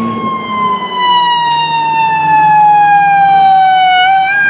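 Ambulance siren wailing: one long, slow downward sweep in pitch that turns back up near the end.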